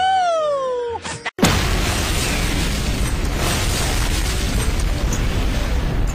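A wavering musical tone glides up and down, then stops about a second in. A moment later an explosion starts suddenly and rolls on as a long, deep rumble with hiss.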